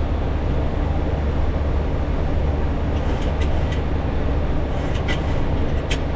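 Steady low rumble of Boeing 737 cockpit noise, from the engines and airflow. A few short clicks come about three seconds in and again around five and six seconds in.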